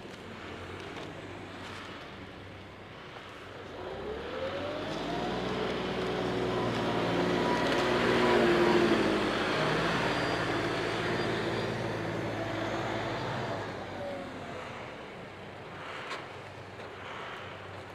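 John Deere 5305 tractor's diesel engine revving up about four seconds in as it works its front loader and bale grabber. It is loudest near the middle, then eases off and fades as the tractor drives away.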